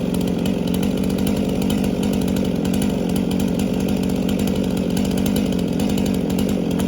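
Chainsaw engine running at a steady speed, its pitch holding even throughout.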